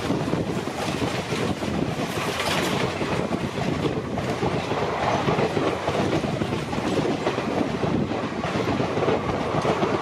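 Passenger coaches of an express train passing close at speed: a loud, steady rush of wheel and rail noise.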